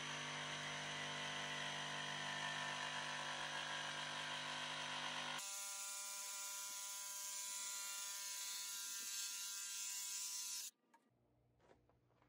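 DeWalt 20V XR cordless jigsaw running and cutting through softwood lumber, a steady buzz. Its tone changes suddenly about five seconds in, and it stops about ten and a half seconds in.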